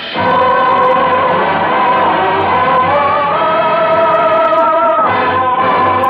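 Choir singing with orchestra in a few long held chords, heard with the thin, muffled sound of an old radio recording.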